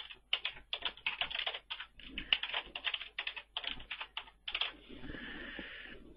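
Typing on a computer keyboard: a run of quick, irregular keystrokes, then a steady hiss for about the last second.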